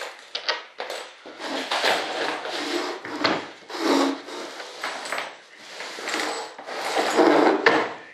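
Hands rubbing and scraping across a freshly molded model jet wing and its mold, in a series of uneven rasping strokes.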